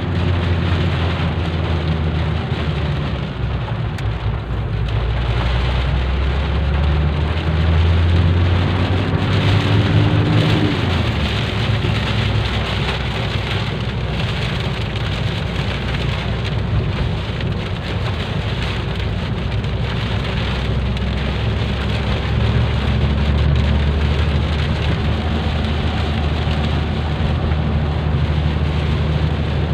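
Heavy rain pelting a moving car in a storm, a steady dense hiss, with the car's engine running underneath; the engine's pitch sags, climbs and then drops back about ten seconds in.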